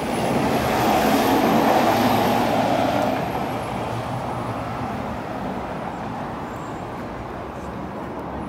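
Road traffic on a busy city street: a vehicle passes close, its noise swelling and fading in the first few seconds, then a steady traffic rumble.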